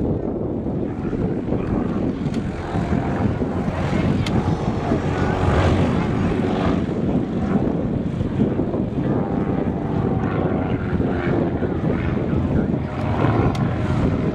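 An aerobatic biplane's piston engine and propeller droning overhead, with the engine note shifting up and down as it flies, over a steady low rumble.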